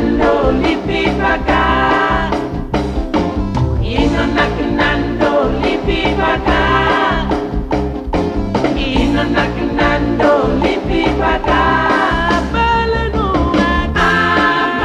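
Upbeat band music with a steady, quick beat and electric guitar lines, with some singing.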